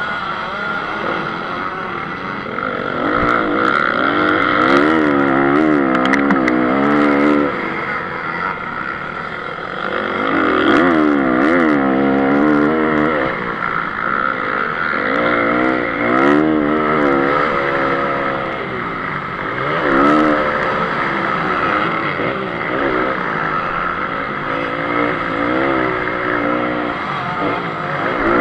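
Honda CRF 250 single-cylinder four-stroke motocross engine at race pace, surging about five times as the throttle is opened and closed, its pitch sweeping up and down, over a steady rushing noise. A few sharp ticks cut through.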